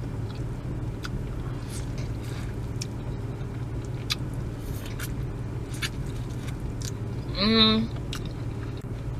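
Chewing and small mouth and shell clicks of someone eating seafood boil, over the steady low hum of a parked car's idling engine. A short vocal sound comes about seven and a half seconds in.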